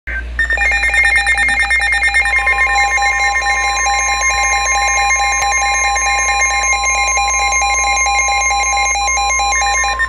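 Midland weather alert radio sounding its alert: a loud, rapidly warbling electronic beep. About three seconds in, the steady NOAA Weather Radio warning tone joins it and holds until near the end. Together they signal an incoming flash flood warning.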